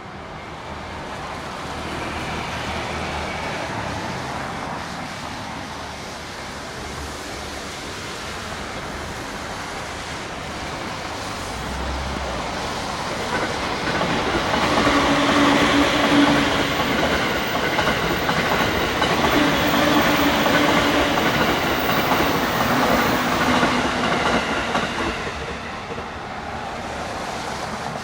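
Keikyu electric train passing, its wheels clattering over the rail joints. The noise builds, is loudest through the second half, and eases off near the end, with a low steady tone coming in twice during the loudest part.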